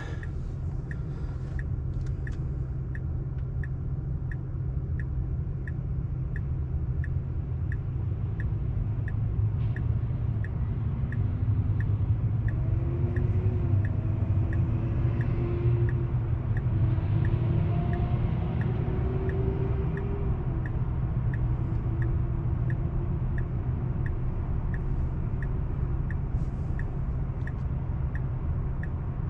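Steady low road and tyre rumble inside a Tesla's cabin while driving, with the turn-signal indicator ticking evenly about one and a half times a second. A faint wavering tone drifts in and out in the middle.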